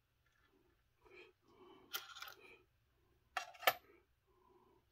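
Small transmission parts and screws being handled and set down on a scale, with soft rattling and then two sharp clicks about three and a half seconds in.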